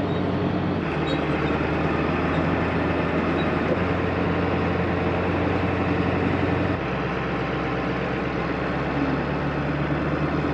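Ford F-350's 7.3 L Powerstroke turbo-diesel V8 running steadily as it pulls the truck camper slowly up a gravel grade, a low drone whose note shifts a step a few times and drops about two-thirds of the way through. A steady rush of wind and tyre noise runs underneath.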